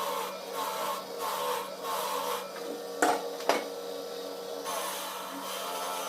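Repeated hand rubbing or scraping strokes, a little under two a second, broken midway by two sharp knocks about half a second apart, then a more even rubbing.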